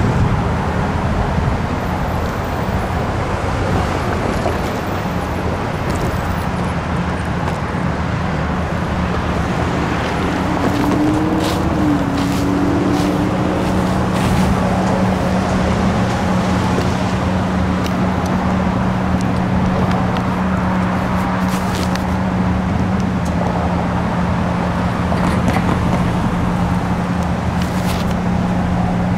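Steady road traffic noise with a constant low engine hum underneath.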